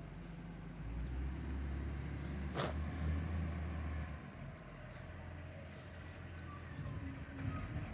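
Diesel engine of a bin collection truck rumbling as it works down the street, louder for a few seconds and then easing off. A short sharp noise cuts across it about two and a half seconds in.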